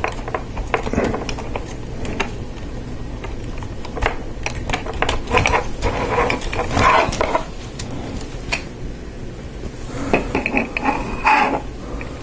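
Lego Technic plastic parts clicking, scraping and rattling as they are handled and pushed together, busiest around the middle and again near the end, over a steady low hum.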